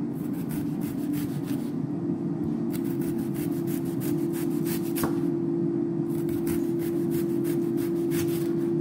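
Chef's knife slicing an onion thin on an end-grain wooden cutting board: quick knife strokes tapping the board in runs, with two short pauses. A steady hum from the running air fryer sits underneath.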